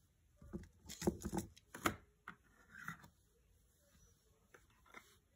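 Light, irregular taps and knocks of a plastic toy horse figure with a rider being handled and set down on a cardboard play surface, a quick cluster in the first couple of seconds, then a few scattered taps.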